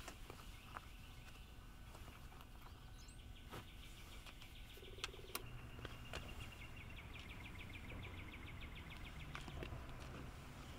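Faint outdoor ambience with a bird trilling in rapid runs of short chirps, twice, over a low steady rumble, and a few sharp clicks and taps from boots and fishing gear being handled.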